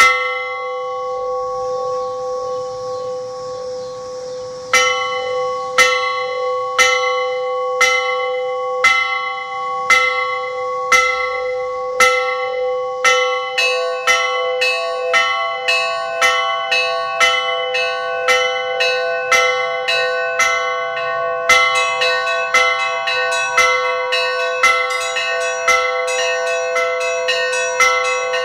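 Orthodox church bells rung by clapper ropes in a short peal. One stroke rings on at first; from about five seconds in, bells strike about once a second. More bells join at a quicker pace around the middle, and more higher bells come in near the end, so the ringing thickens into a full peal.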